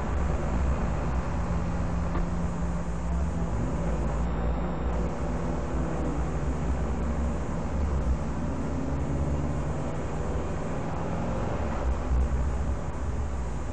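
Aston Martin Vantage engine running at low revs as the car rolls slowly, heard from inside the cabin, its note shifting slightly in pitch with a steady road and cabin noise over it.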